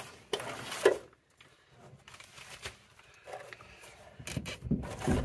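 Faint scuffing and clicking of hands and tools handling the brass pipe fittings on top of a water heater. There is a sharper knock about a second in, then a quiet stretch, and more light clicks near the end.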